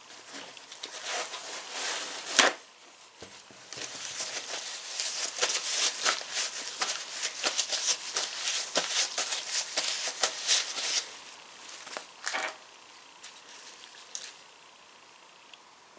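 Irregular metallic clicks and scraping of small tools working a greased snap ring into a vintage Craftsman ratchet head, with one loud sharp snap about two seconds in and the busiest clicking from about four to eleven seconds in.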